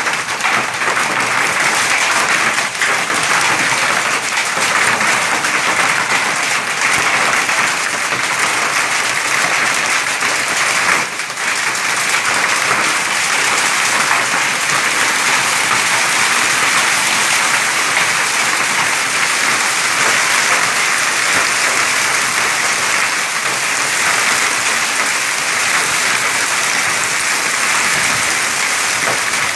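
Hail coming down steadily, a dense, even clatter on the ground and garden plants, dipping briefly about eleven seconds in.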